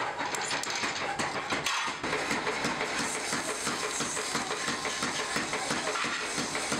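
A few sharp taps, then a belt-driven polishing wheel running with a steel cleaver blade pressed against it: a steady grinding whir with a quick regular ticking, about four a second.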